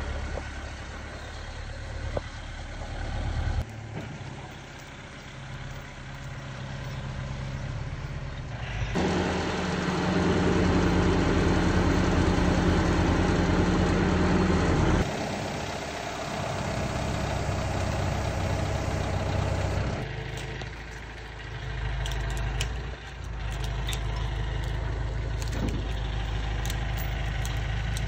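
Diesel engine of a Manitou MT 1740 telehandler running steadily while its boom works as a crane. It is noticeably louder for about six seconds in the middle, and a few light clicks come near the end.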